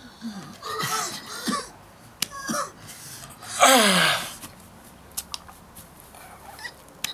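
A man making wordless animal-like yelps and whines, the loudest a cry that falls sharply in pitch about halfway through.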